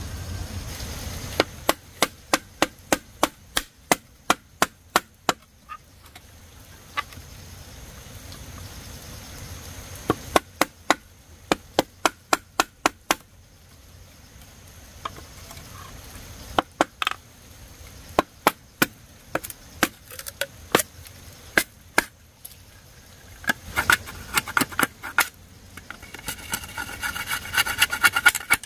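Machete blade chopping into bamboo: quick sharp knocks, about three to four a second, in runs of several seconds with short pauses between, and a denser run of strokes near the end.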